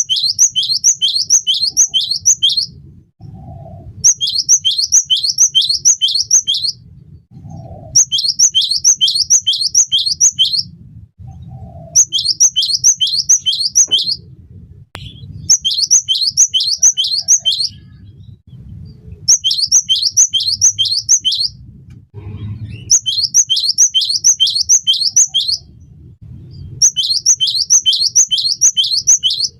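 Cinereous tit (gelatik batu) singing vigorously: bursts of high, sharp, quickly repeated notes, about three a second, each burst lasting around two seconds and coming back roughly every four seconds.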